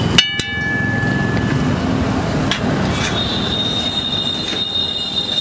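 A metal spatula clangs once against an iron griddle just after the start and rings briefly. From about three seconds in, a steady high squeal sounds over a low background rumble.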